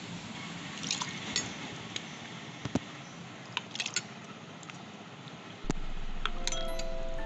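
A metal spoon clinking now and then against a stainless steel pot and a glass while chopped fruit is scooped into the glass. About two-thirds of the way through, background music with held tones comes in suddenly.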